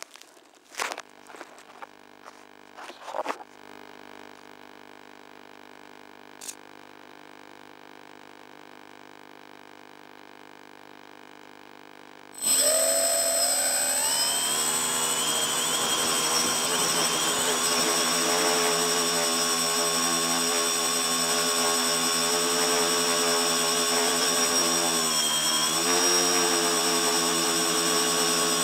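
Tricopter's three brushless motors spooling up suddenly about twelve seconds in, rising in pitch for takeoff, then running at a steady whine in flight with a brief dip in pitch late on. Before that, a few clicks and knocks over a faint steady hum while the craft sits on the ground.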